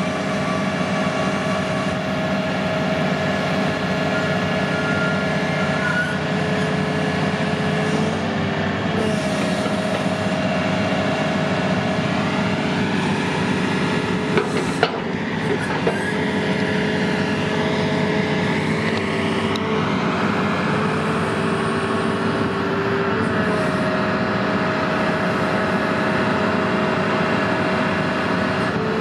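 Doosan DX480LC high-reach demolition excavator running, its diesel engine steady under a hydraulic whine that breaks off and returns several times as the long demolition arm is moved. One sharp knock about fifteen seconds in.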